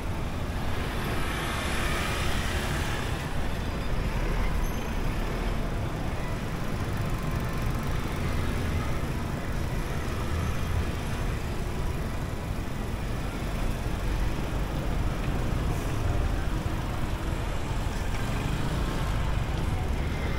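Street traffic: motor vehicles running and passing, a steady low rumble with a brief hiss about two seconds in.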